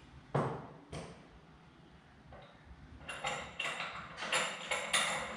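Two sharp knocks, then from about three seconds in a run of quick taps, about three to four a second.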